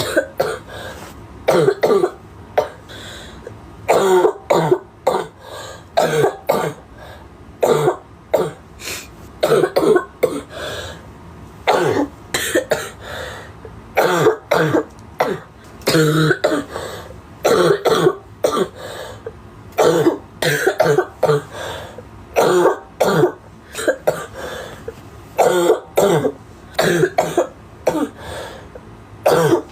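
A girl coughing over and over, in short fits of two to four coughs with a fit about every two seconds.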